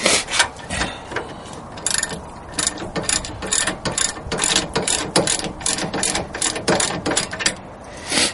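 Ratchet wrench clicking in quick back-and-forth strokes, about two to three clicks a second, as a brake assembly bolt is tightened down.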